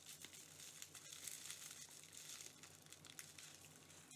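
Faint crinkling of plastic bubble wrap as a pen in its plastic sleeve is slid out of it: small, irregular crackles.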